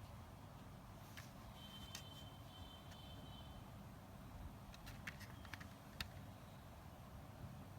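Faint scattered clicks and light rustles of a CD single's packaging being handled, over a low steady hum. A faint thin high tone sounds for about two seconds early in the stretch.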